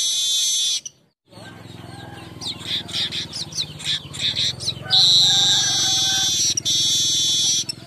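Weaver bird (manyar) song: a run of quick chirps, then long, loud, buzzy wheezing trills, over a steady low hum.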